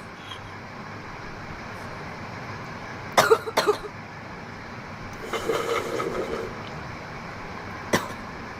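A woman coughing from a large bong hit: a quick cluster of two or three harsh coughs about three seconds in, a throaty voiced sound a couple of seconds later, and one more cough near the end, over a steady background hum.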